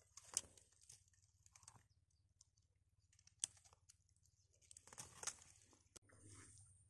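Faint crackling and rustling of dry straw and grass stalks being handled, with a few sharp clicks.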